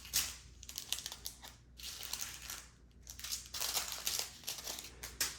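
Small plastic bags of diamond painting drills crinkling as they are handled and sorted, in several short bursts.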